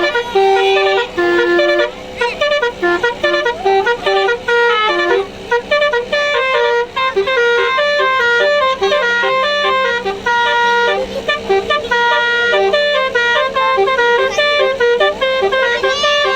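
Telolet basuri musical bus horn playing a melody: a quick run of short horn notes stepping up and down in pitch, over a steady low hum.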